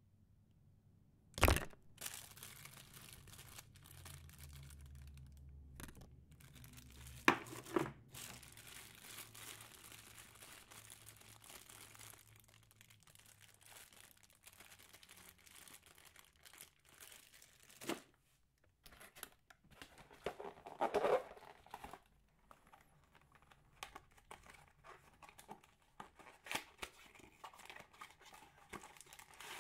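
Unboxing packaging being handled: crinkling and tearing throughout, broken by a few sharp knocks. The loudest knocks come about 1.5 s and 7 s in, and there is a louder burst of rustling a little past two-thirds of the way through.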